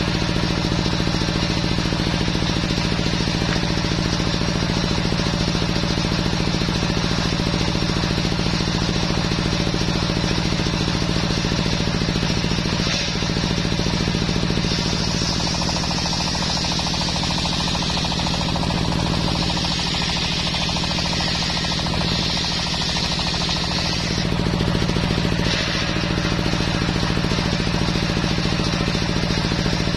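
Belt-driven table circular saw running steadily as it rips a teak log lengthwise, a steady mechanical drone under the hiss of the blade cutting. The cutting hiss grows brighter for several seconds in the middle as the log is pushed through.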